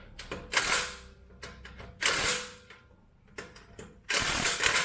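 Ratchet wrench being cranked in three quick runs on suspension bolts: two short bursts of rapid clicking, then a longer run near the end, with small clicks and knocks in between.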